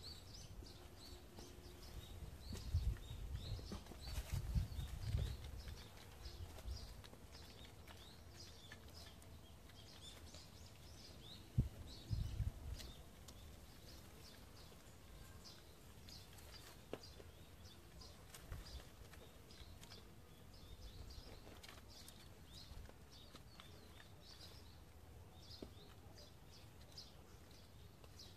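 Garden ambience: small birds chirping repeatedly in short notes, over a low rumble that swells a few seconds in and again about twelve seconds in.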